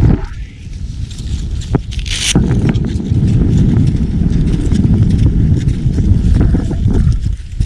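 Wind buffeting the camera microphone as a steady low rumble, with scattered crunching steps in snow and a brief loud gust-like hiss about two seconds in.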